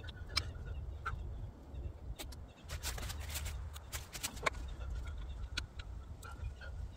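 Hand tools clicking and scraping against a tractor tire's rim and rubber valve stem while the stem is worked back into its hole, with faint bird calls in the background.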